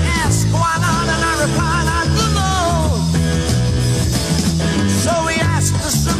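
Rock music: a band playing, with a wavering lead melody over a steady bass line.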